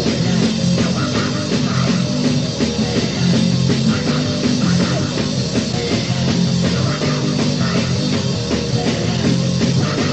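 Loud, distorted punk music with electric guitar, bass and drums, playing without a break; the sound is dull at the top, as from a dubbed cassette.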